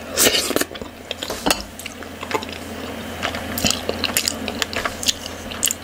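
Close-miked wet eating sounds of fufu with soup eaten by hand: soft sticky squishes of chewing, with scattered lip smacks and mouth clicks.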